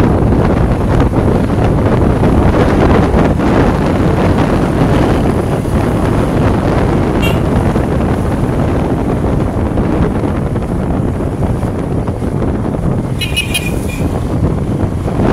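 Heavy wind rush on the microphone of a moving ride, with road and vehicle noise under it. A single short high beep comes about seven seconds in, and a quick run of short beeps comes near the end.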